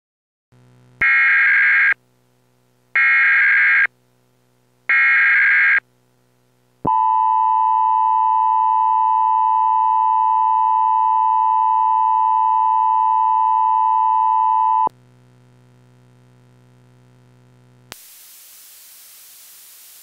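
Mock Emergency Alert System alert tones: three short, harsh SAME header data bursts, about a second each and two seconds apart, then the steady EAS attention tone held for about eight seconds over a low hum. Near the end a steady static hiss starts.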